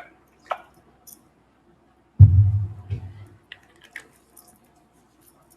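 A lime wedge being squeezed into a glass of beer, heard as faint wet clicks and squishes. About two seconds in comes a sudden low rumble lasting about a second.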